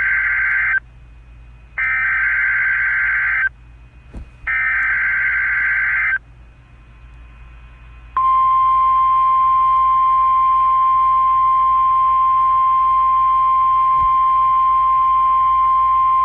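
Emergency Alert System SAME header: three harsh, warbling digital data bursts, each lasting just under two seconds with about a second between them, the first already under way. About eight seconds in comes the steady single-pitched 1050 Hz NOAA Weather Radio alarm tone, which is still sounding at the end. This is the start of an alert, here a tornado watch.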